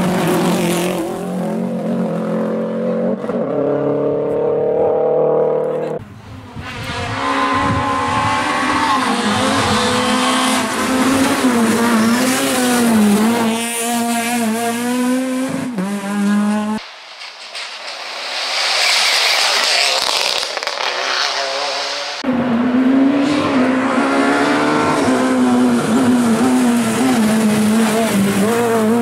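Rally cars, among them a Subaru Impreza and a Peugeot 207, driven flat out on a tarmac stage: engine notes climbing and dropping with throttle and gear changes, several passes cut one after another. About two-thirds through, the engine drops away for a few seconds under tyre squeal.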